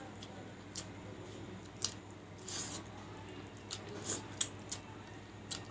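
Eating by hand from a steel plate: about eight scattered sharp clicks and short smacks, from fingers working the food on the plate and the mouth chewing, over a faint steady hum.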